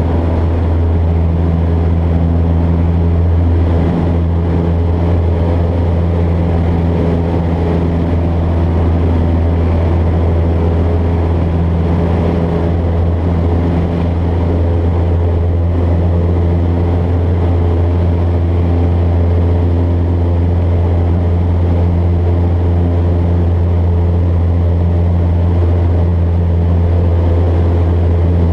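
Bellanca Citabria 7ECA's engine and propeller droning steadily in flight, heard from inside the cabin.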